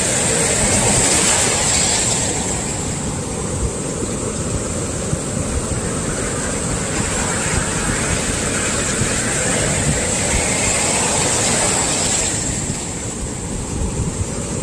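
Heavy sea swell breaking and washing up the beach as a continuous rush of surf noise. It surges about a second in and again through the middle, then eases near the end.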